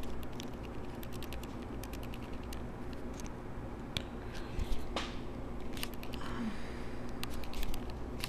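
Faint clicks and scrapes of hand pliers, their teeth ground off into rounded pockets, squeezing a wire ring's rivet to set it round. There are sharper metal clicks about four and five seconds in.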